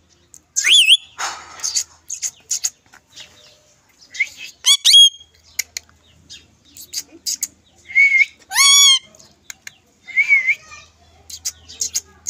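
A pet parrot calling: short, arching whistled calls and harsher squawks, with sharp clicks between them.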